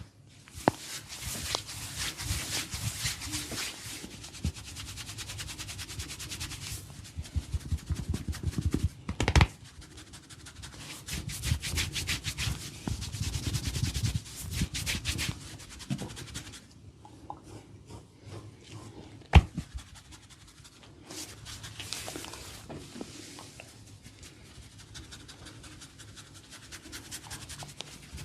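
Hands rubbing and scratching an oiled scalp and hair during a head massage, in dense runs of fast, scratchy strokes. A sharp click comes about nine seconds in, and a louder one, the loudest sound, about nineteen seconds in.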